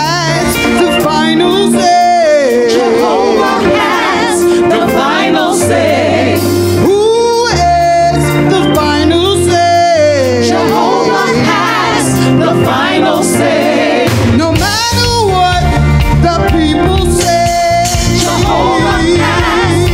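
Gospel praise team singing with microphones over instrumental accompaniment, voices gliding between held notes above a steady bass line.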